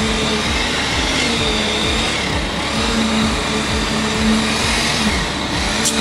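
Construction machinery running steadily during a concrete pour for a footing: a continuous engine drone with a mid-pitched hum that holds for stretches and drops out about a second before the end.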